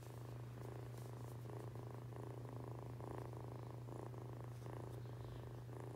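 Young tuxedo kitten purring close to the microphone: a steady low rumble that pulses rhythmically with its breathing.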